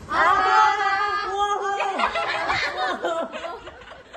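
A song with held sung notes plays for about the first two seconds, then women laugh and chatter.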